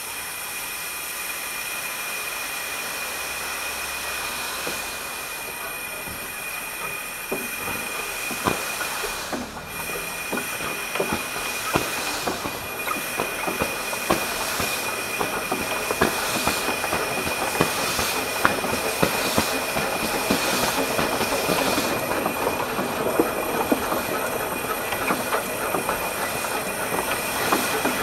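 12¼-inch gauge steam locomotive with coaches, built by the Exmoor Steam Railway, pulling away from a standstill. At first there is a steady hiss of steam; from about a quarter of the way in, sharp clicks and knocks of the wheels on the track come in and grow more frequent as it gathers speed.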